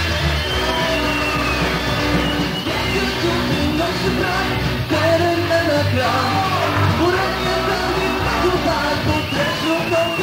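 Rock band playing live: electric guitars, bass guitar and drums, with a male voice singing over them.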